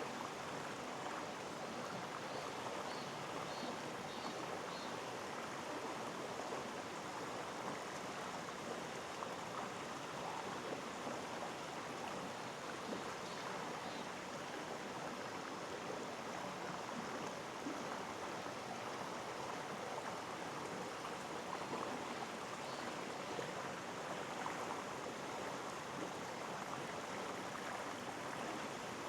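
Mountain stream in a gorge, water rushing steadily.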